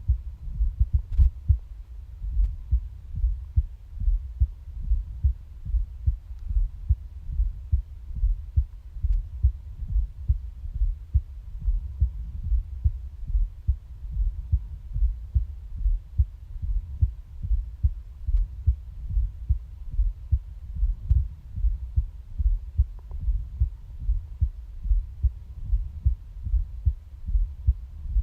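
Human heartbeat recorded against the body: a steady run of low, dull lub-dub thumps.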